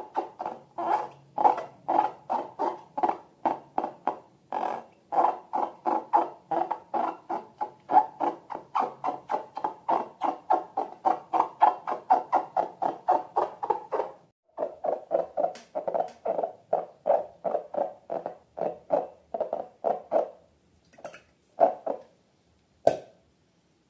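Slime being squeezed and kneaded by hand, squelching in a steady rhythm of about three squishes a second. Near the end it slows to a few scattered squishes.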